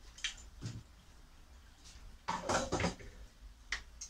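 Hand tools and metal being handled at a bench vise: a few sharp clicks and knocks from a hacksaw and steel stock, with a short burst of metallic clatter a little over two seconds in. No sawing strokes yet.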